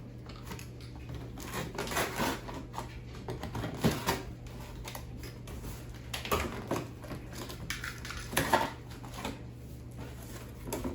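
Packaging being handled and cut open: irregular knocks, clicks and rustles of plastic and cardboard as a boxed chainsaw is freed from its packing, over a steady low hum.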